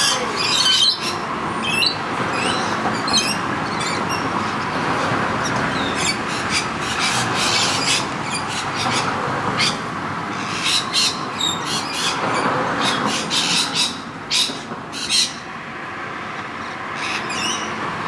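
Rainbow lorikeets calling as they feed: many short, high, shrill calls in quick succession over a steady background noise.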